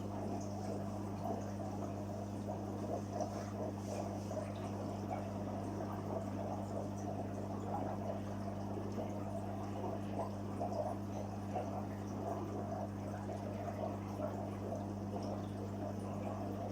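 Water trickling and splashing steadily into a koi fry pond, over a steady low hum.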